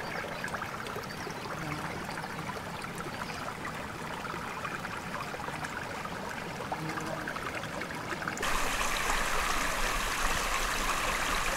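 Mountain stream rushing and gurgling, a steady wash of water noise that jumps abruptly louder about eight seconds in.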